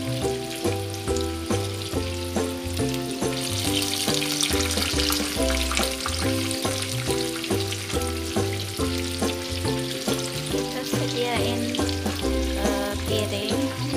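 Samosas deep-frying in a pan of hot oil, a steady sizzle that swells for a couple of seconds around the middle, over background music with a rhythmic bass line.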